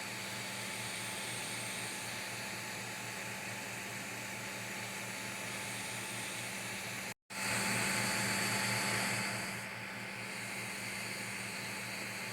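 Creality CR-M4 3D printer running: a steady fan whir and hiss over a low hum. A sudden cut a little past halfway, then the same running sound comes back a bit louder for about two seconds before it settles.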